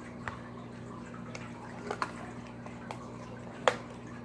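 Slime being handled and dropped into a bowl: a few short wet clicks and pops, the loudest near the end, over a steady low hum.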